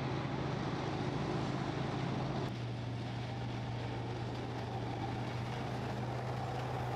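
A steady low mechanical hum, like a running engine, over steady outdoor background noise. The character of the background changes abruptly about two and a half seconds in.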